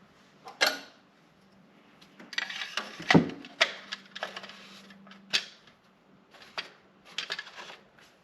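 Irregular clicks and knocks of things being handled, loudest a little after three seconds in, over a faint steady hum; the mower's engine is not running.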